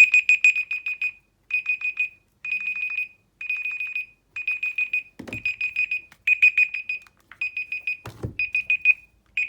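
Smartphone alarm clock going off: a high-pitched electronic beep pulsed rapidly in short bursts, about one burst a second. Two dull knocks sound midway and near the end.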